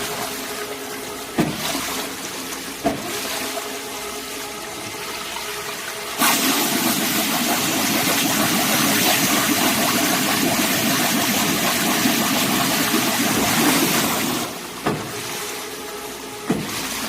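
Loach flesh-and-bone separating machine running with a steady hum and a sharp clack about every second and a half. From about six seconds in, a loud rush of water covers it for some eight seconds, then stops.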